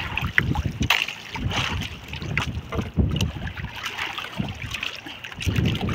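Wind buffeting the microphone and choppy sea slapping against the hull and outrigger of a small outrigger fishing boat, with scattered knocks and splashes.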